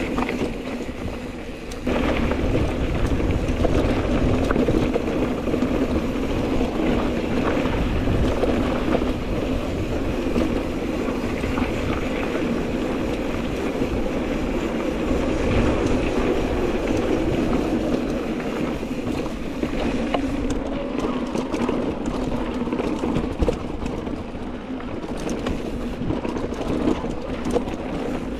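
Mountain bike riding down a dry dirt singletrack: the tyres roll over dirt and gravel and the bike rattles and clicks over bumps, with wind on the microphone. Quieter for the first couple of seconds, then louder as speed picks up.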